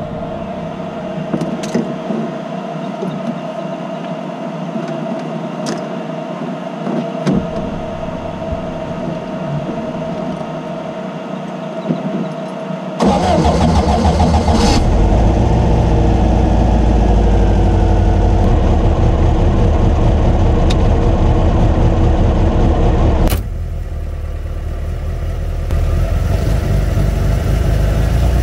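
Turbocharged air-cooled VW Beetle flat-four engine running on the road. About halfway through the sound becomes suddenly much louder and deeper for roughly ten seconds, then drops back abruptly and builds again near the end.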